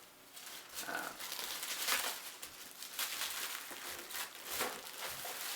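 Packaging of a model kit crinkling and rustling in the hands as it is handled and opened, in short irregular crackles.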